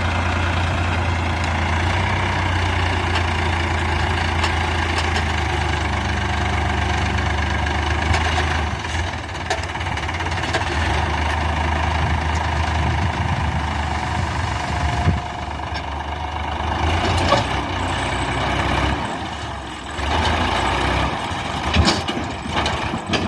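Heavy diesel engine running steadily with a low hum that fades in the last few seconds, with a few sharp knocks near the end.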